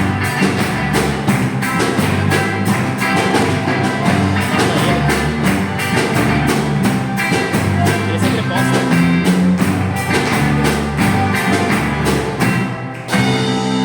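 Band playing rock-style music with drums, guitar and bass to a steady beat. It dips briefly near the end, then lands on a loud final hit.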